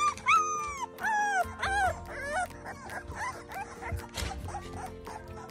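A litter of young American Pit Bull puppies whimpering: a run of high, squeaky cries, each falling in pitch. The cries come thick in the first two seconds or so and grow fainter after, over soft background music.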